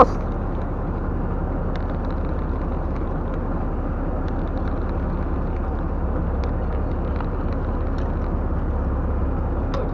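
Fishing boat's engine running steadily, a low rumble under a hiss of wind and sea, with a few faint clicks.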